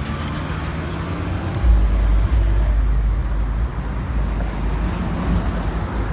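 Early-1990s Honda Accord driving away down the street, engine and tyre noise fading off, under a deep low rumble that swells from about a second and a half in.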